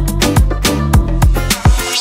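Upbeat background music with drums and bass keeping a steady beat; near the end the bass drops out briefly under a rising hiss, and the beat comes back.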